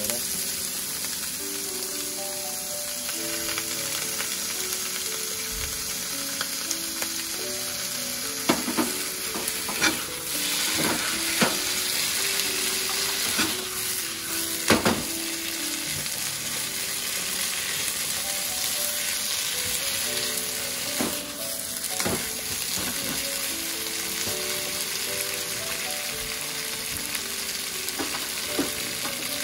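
Food sizzling as it fries in oil in a pan, with stirring and a few sharp knocks of a utensil against the pan, mostly in the middle. A quiet background melody plays underneath.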